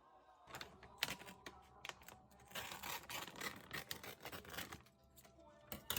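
Keys of a computer keyboard clicking in quick, irregular runs as it is typed on.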